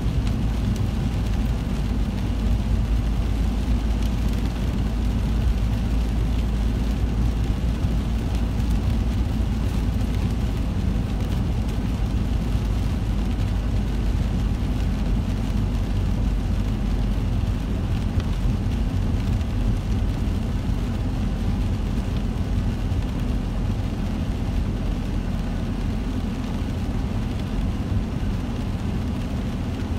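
Steady rumble of a car's engine and tyres on a wet road, heard from inside the cabin in heavy rain.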